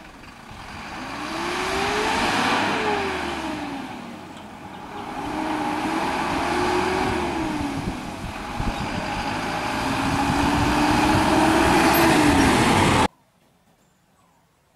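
Motor vehicles going past one after another, three in all, each swelling up and fading with its engine note climbing and then dropping as it passes. The sound cuts off abruptly near the end, leaving near silence.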